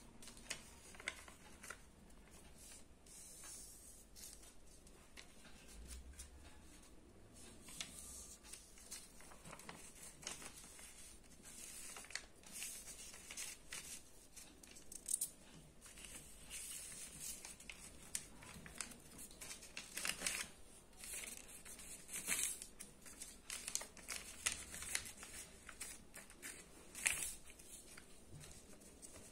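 A sheet of lined notebook paper being folded and creased by hand into a paper plane: faint, irregular rustles and crinkles, growing busier and louder past the middle.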